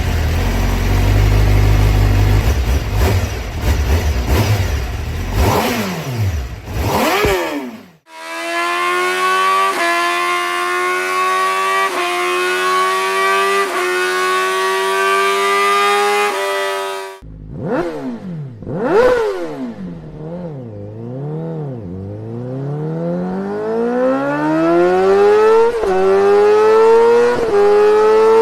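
Honda CBR1000RR-R Fireblade SP's inline-four engine through its exhaust, in several cut-together clips: first a rough, noisy run with a quick rev, then a steady high engine note that climbs and drops back every second or so, then sharp throttle blips followed by the pitch climbing under acceleration with a drop at each gear change near the end.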